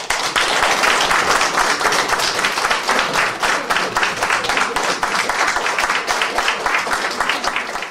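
Audience applauding at the end of a song: dense, steady clapping from a roomful of people.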